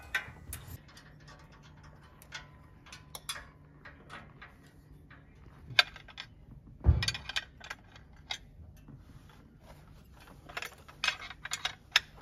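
Hand tools on a motorcycle's old chrome exhaust as it is unbolted: scattered metallic clicks and clinks of a wrench against the header pipe and its fittings. There are two louder knocks about six and seven seconds in, and a quick run of clicks near the end.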